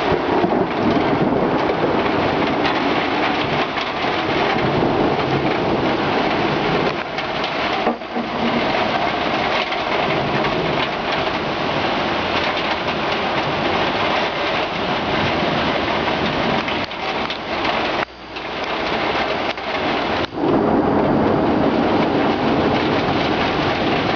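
Heavy rain pouring steadily during a thunderstorm, with thunder rumbling through it.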